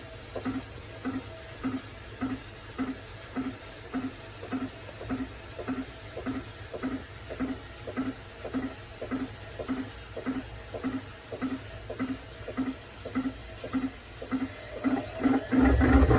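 Whirlpool washing machine in its spin cycle, with a regular knock a little under twice a second, the drum turning over slowly. Near the end the knocks come faster and the motor spins up with a rising whine, suddenly much louder. The spin is abnormal.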